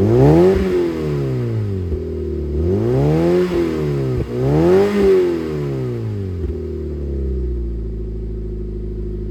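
Mazda MX-5 NC's 2.0-litre four-cylinder engine, through an I.L Motorsport aftermarket rear silencer, blipped three times, its pitch rising and falling each time, then settling to a steady idle for the last couple of seconds.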